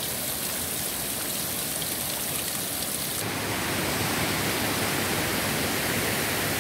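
Water dripping and trickling off a rock ledge in a steady patter. About three seconds in it changes suddenly to a fuller, louder rush of shallow river water running over a flat rock shelf.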